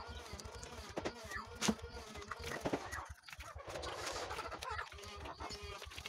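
Knocks and rattles of a wooden bird cage and its dishes being handled, with wavering animal calls mixed in.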